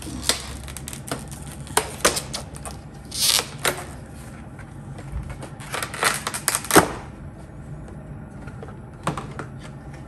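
Clear plastic clamshell packaging being pried open and handled: a string of irregular sharp crackles and clicks, busiest a little past the middle, as the black shooting tripod adapter is pulled out.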